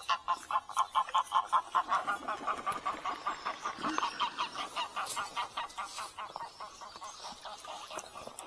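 A bird giving a long, fast run of short repeated calls, about six or seven a second, loudest for the first three seconds, then fainter and more broken.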